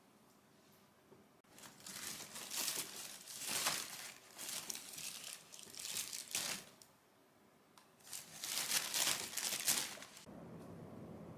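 Thin white plastic shopping bag crinkling in bursts as a cat bites and tugs at it. The crinkling starts about a second and a half in, stops for about a second in the middle, and comes back before stopping near the end.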